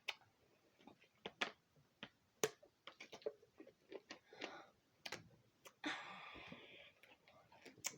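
Faint, scattered clicks and taps from something being handled close to the microphone, with a short rustle about six seconds in.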